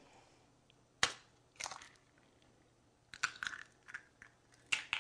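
A raw egg being cracked open over a cocktail shaker: a sharp crack about a second in, then several smaller crunching clicks as the shell is broken apart.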